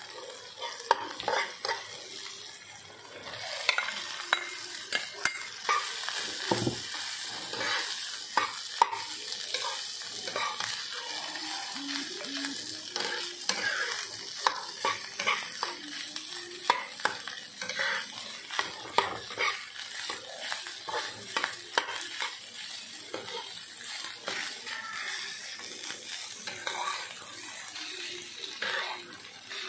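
Spice paste and rice sizzling in a frying pan while a metal spoon stirs them, with frequent sharp clicks and scrapes of the spoon against the pan.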